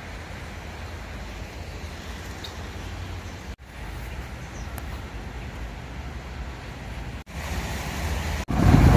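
Steady low rumble of outdoor street ambience, broken twice by brief dropouts, with a much louder low rumble starting just before the end.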